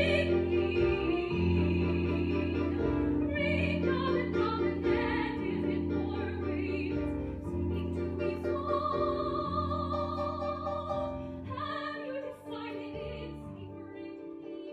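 Soprano voice holding a long note with wide vibrato over instrumental accompaniment for about three and a half seconds. The instruments then play on alone, getting gradually quieter toward the end.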